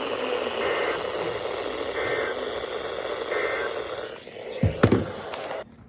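Radio static hiss from a receiver tuned to a weak weather-radio signal, even and steady. Near the end the hiss drops away, a knock and a few sharp clicks sound, and then it goes quiet.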